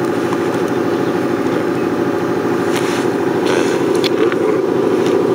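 A steady engine-like drone running without a break, with a few faint clicks about three to four seconds in.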